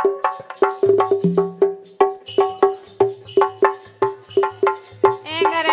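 Instrumental passage of Bundeli rai folk music: harmonium over a fast, steady percussion beat of sharp, wood-block-like clicks. A singer's voice comes in near the end.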